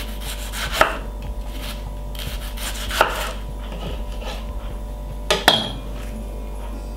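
Chef's knife slicing a red onion on a wooden cutting board: a run of light knife strokes, with sharper knocks of the blade on the board about a second in, about three seconds in, and twice close together about five and a half seconds in. A steady low hum runs underneath.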